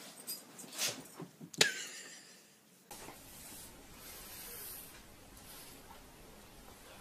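Cat and large dog play-fighting: a few sharp hisses and scuffles, the loudest a short hiss with a falling pitch about a second and a half in. After about three seconds only faint steady background hiss remains.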